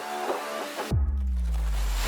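Background music track; about a second in, the high end briefly drops out and a deep bass note comes in with a falling tone.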